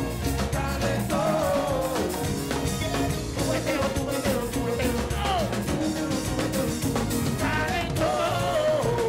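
Live Cuban reggaeton (cubatón) played by a band through a stage PA: a steady beat with a male voice singing in short phrases.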